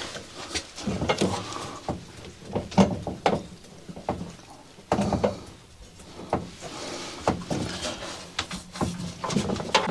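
Irregular knocks, clicks and scrapes of hand tools and parts being worked at close quarters, with short pauses between.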